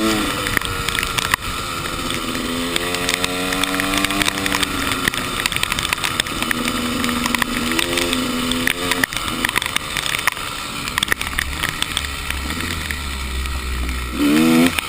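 Enduro dirt bike engine revving up and down as it rides, its pitch rising and falling, with many sharp clicks and rattles over it. A quick rising rev comes near the end.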